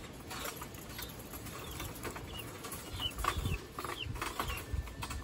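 Guinea fowl feeding: scattered sharp taps of beaks pecking at feed, with a few short, high chirps from the birds, busier in the second half.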